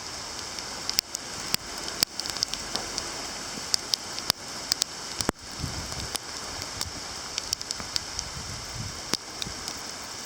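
Heavy shower of rain mixed with small soft hail and ice pellets, making a steady hiss with scattered sharp ticks as pellets strike.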